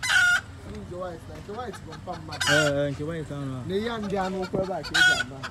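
Rooster squawking: three short, shrill squawks about two and a half seconds apart, the first right at the start and the last near the end.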